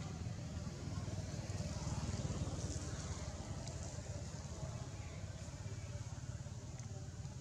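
Steady low outdoor background rumble, with a few faint ticks.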